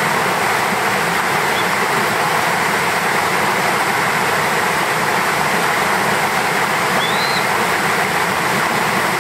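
Steady rain falling: a continuous, even hiss.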